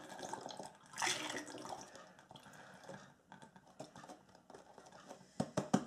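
Apple juice pouring from a carton through a plastic funnel into a 5-litre aluminium keg, a trickling, splashing liquid sound that surges about a second in and then thins out. A few sharp clicks come near the end.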